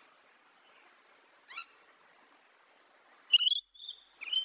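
Rainbow lorikeet calling: one short high call about one and a half seconds in, then three loud, high calls in quick succession near the end.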